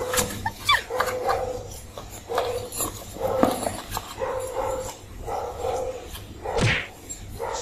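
Kittens mewing over and over in short calls, with light knocks and scuffling as they play with a cardboard box and a wire ball toy.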